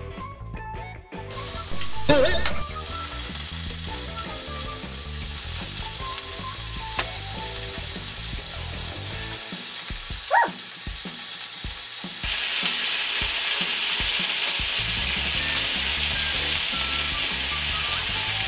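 Frozen chicken heart skewers sizzling on a hot electric griddle as more are laid on, the sizzle starting about a second in and growing louder about twelve seconds in.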